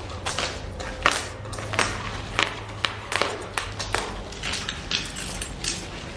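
Bubble-wrap mailer being cut open with a box cutter and peeled back from a cardboard-wrapped package, the plastic crinkling and crackling in irregular sharp clicks.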